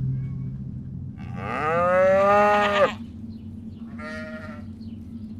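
Farm animal calling: one long call that rises in pitch and then holds for about a second and a half, followed by a short call about four seconds in.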